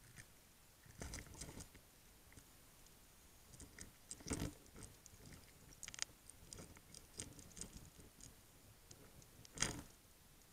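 Irregular clicks and knocks heard underwater, with a few louder knocks about a second, four and a half, six and nearly ten seconds in.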